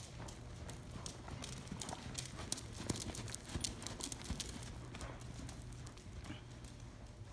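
A ridden horse's hoofbeats at a trot on soft arena footing. The beats grow loudest as the horse passes close, about three seconds in, then fade as it moves away.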